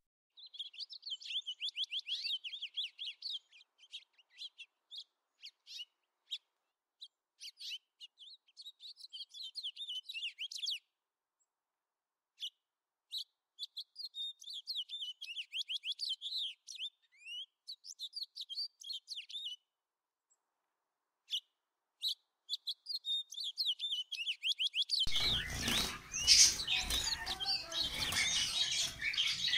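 Society finches (Bengalese finches) singing: phrases of rapid, high chirping notes separated by short pauses. About 25 seconds in, the sound turns louder and fuller, with many finches in a crowded cage chirping over a background noise.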